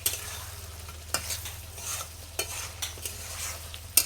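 Spiced chicken pieces sizzling in hot oil in a kadai while being stir-fried with a spatula. The spatula knocks and scrapes against the pan about once a second. This is the frying-down (bhuna) stage, where the oil starts to separate from the masala.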